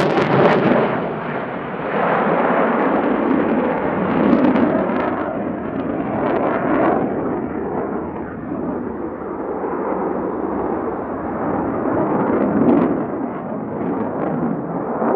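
Jet noise from an F/A-18C Hornet's two F404 turbofan engines in flight overhead: a loud, rough rumble with crackle, its high hiss fading about half a second in.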